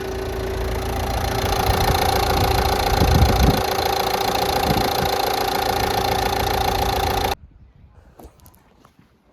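Vauxhall Combo van engine idling with a steady drone and an uneven low rattle, the air filter box vibrating on its worn rubber mounting grommets. The sound cuts off abruptly near the end, leaving only faint clicks.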